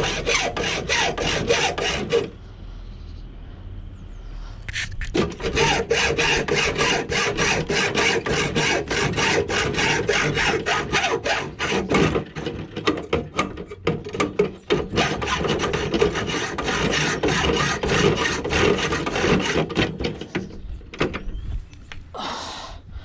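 Hand sawing through metal, rapid even back-and-forth strokes at about three a second, cutting copper pipe out of a scrap boiler. It pauses briefly about two seconds in, then saws on and tails off near the end.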